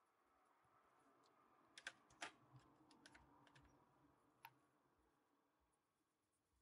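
Faint clicks and light clatter of coloured pencils being handled and swapped, with a cluster of sharp ticks about two seconds in and a last single click a little past the middle.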